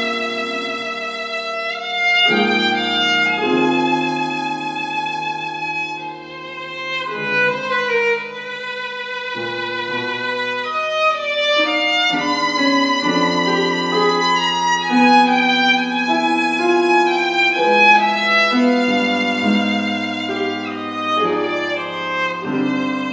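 Violin playing a slow melody of long held notes with vibrato, accompanied by a grand piano.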